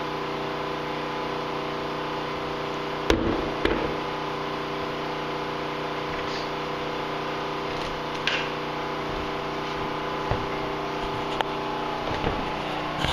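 Steady mechanical hum with several fixed pitches, broken by a few sharp knocks and clunks of parts being handled on the snowmobile. The loudest knock comes about three seconds in, with another just after.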